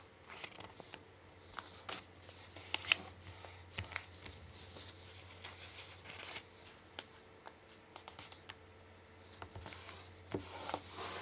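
Origami paper rustling and crinkling as it is folded by hand, with fingers pressing and sliding along the creases in short, scattered scrapes and taps. A faint steady hum runs underneath.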